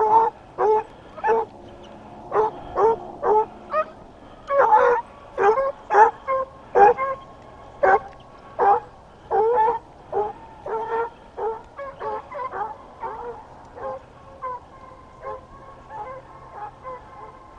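Deer hounds barking and baying in quick succession, giving tongue as they run a deer. The barks grow fainter after about ten seconds.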